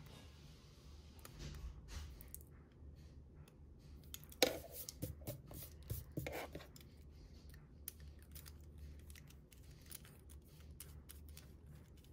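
Faint clicks and taps of a plastic multi-pen being handled as the protective tips are popped off its ink refills, with two louder clicks about four and a half and six seconds in.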